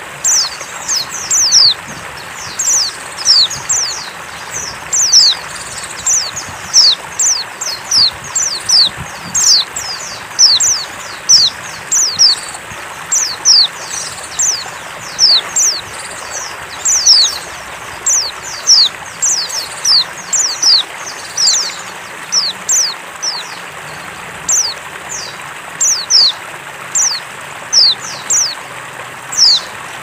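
Female white-eye (pleci, Zosterops) calling: short, sharp, high-pitched notes that drop steeply in pitch, often in quick runs of two or three, repeated throughout over a steady hiss. It is the female's call used to draw male white-eyes into song.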